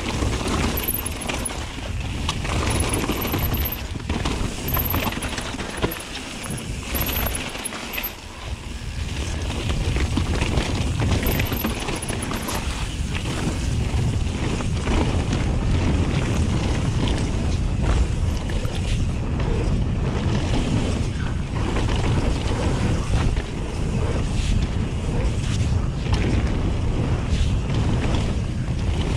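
Wind buffeting an action-camera microphone as a mountain bike rides fast down a dirt trail, with the tyres rumbling over the ground and the frame and parts rattling and knocking over bumps and jumps. It eases a little for a few seconds early on, then runs loud and steady.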